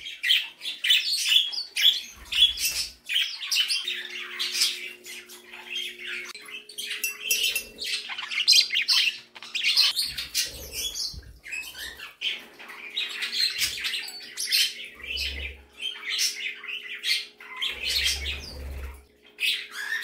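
A flock of pet budgerigars chattering and chirping continuously. A faint steady hum runs underneath from about four seconds in.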